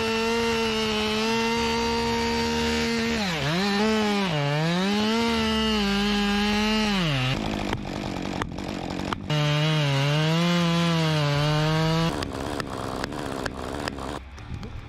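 Chainsaw running at high speed, its pitch dipping and rising again several times before it cuts off about seven seconds in. It runs again at a lower, wavering pitch for about three seconds, then gives way to scattered knocks and cracks.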